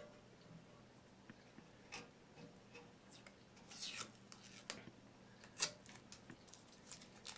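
Tape being peeled off a statue's reglued arm: faint scattered crackles and short rips, a cluster of them about four seconds in and the sharpest snap a little after.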